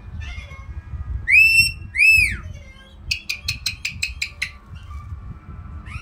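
White-bellied caique parrot giving two loud whistles, each rising then falling, followed by a quick run of about nine short, sharp clicking chirps.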